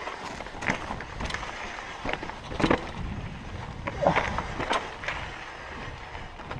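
Kona Process 134 mountain bike riding down a rough dirt trail: tyres rumbling over rocks and ruts, with irregular sharp knocks and rattles from the bike as it hits bumps.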